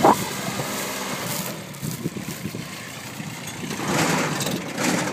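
Kubota B6200D compact tractor's three-cylinder diesel engine running while towing a trailer over ploughed ground, growing louder about four seconds in. A short loud bump sounds right at the start.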